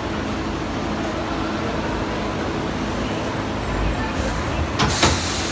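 Roller coaster train rolling into its station with a steady rumble, then a short, sharp hiss near the end.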